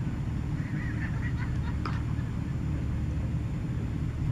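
A steady low rumble runs throughout. A few faint, short high calls come about a second in, and a single short click follows just before the two-second mark.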